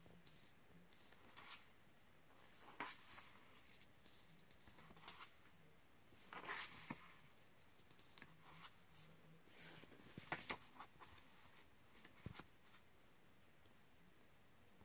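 Faint paper swishes as the pages of a paperback colouring book are turned one after another, a brief rustle every second or two.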